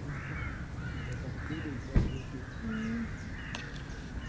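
Crows cawing, with small birds chirping among them. A single sharp knock about two seconds in.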